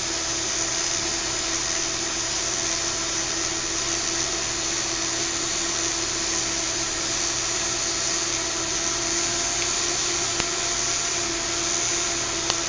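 Small fischertechnik electric motors running at a steady speed, spinning two propellers with a constant whir and a steady hum. The pulse-modulated monorail car is straining: something is holding it back so that it does not run freely.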